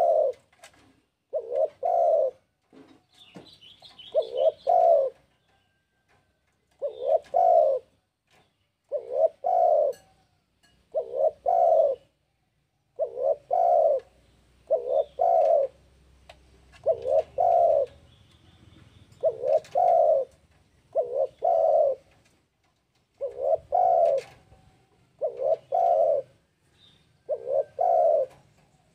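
Spotted dove (tekukur) cooing over and over, short phrases of low coos repeated about every two seconds. This is the call of a bird in breeding condition calling out to rivals. Faint high chirps sound a few seconds in.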